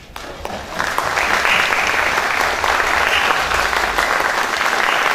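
Audience applauding at the end of a performance: a few scattered claps, swelling within about a second to full, steady applause.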